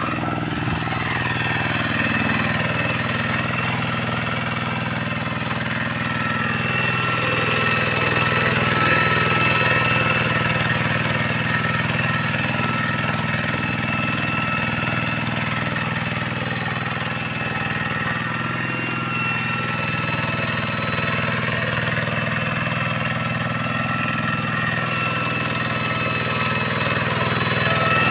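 Hand tractor's single-cylinder diesel engine running steadily, with a thin, steady high whine above the engine note.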